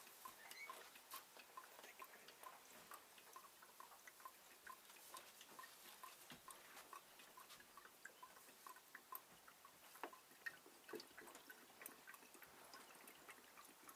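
Oil dripping from an opened X-ray tube head into a tub: a faint run of small plinks, about two or three a second at first, then more scattered, with a couple of louder drops near the end.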